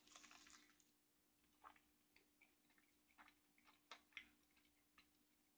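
Near silence: faint, irregular wet clicks of a man chewing a bite of smoked beef rib, over a faint steady hum.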